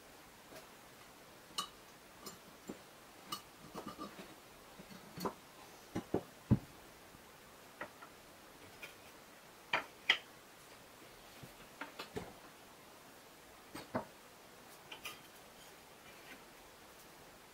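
Scattered light taps and clicks of a steel square tube, a marker pen and a metal-edged try square being handled and set down on a wooden workbench, with a few sharper knocks about six and ten seconds in.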